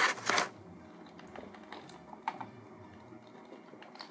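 Typing on a computer keyboard: two louder knocks at the start, then scattered faint key taps.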